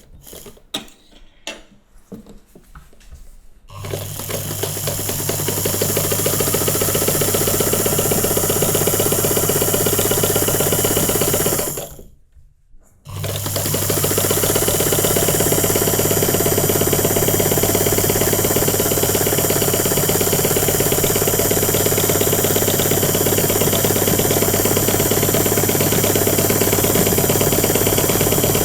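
Electric sewing machine running and stitching at a steady speed, its motor humming under the rapid beat of the needle. A few light clicks come first, then the machine starts up about four seconds in; it stops for about a second near the middle and starts again.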